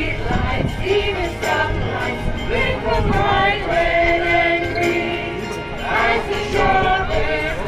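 A group of singers performing a Christmas carol live, with sustained sung notes.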